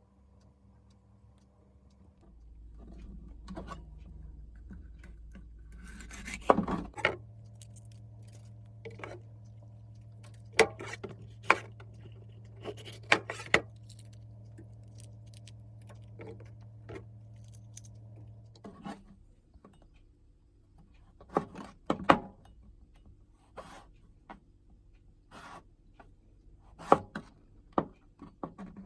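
Food preparation: repeated sharp knocks and clicks of kitchen utensils, over a low steady hum that starts about two seconds in and stops about two-thirds of the way through.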